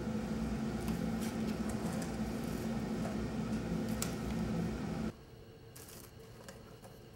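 A steady low electrical hum with light rustles and small clicks of paper and objects being handled; the hum cuts off abruptly about five seconds in, leaving faint room tone.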